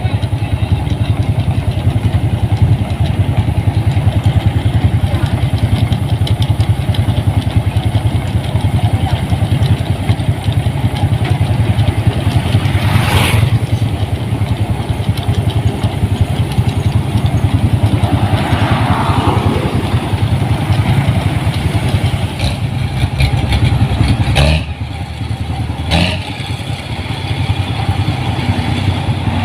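Rice combine harvester engine running steadily, with a brief clatter about halfway through and a short drop in loudness near the end.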